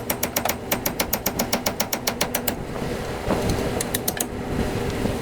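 Chisel hammered rapidly against a rusted-in wheel hub assembly, a fast even run of metallic strikes at about eight a second that stops for a moment and picks up briefly again, over the steady hum of the van's idling engine.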